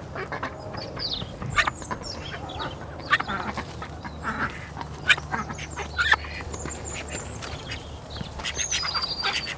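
Ducks quacking in a series of short, sharp calls throughout, with a few thin high whistled chirps near the end.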